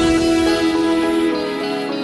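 Soft background music with held instrumental notes; the low bass drops out near the end.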